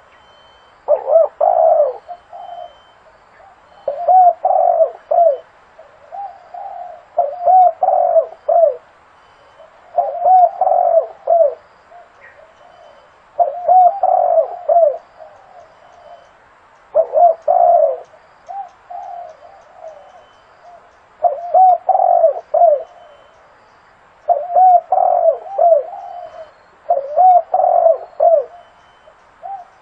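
Zebra dove (Geopelia striata) cooing: phrases of short, quick, rolling coo notes, repeated about every three seconds.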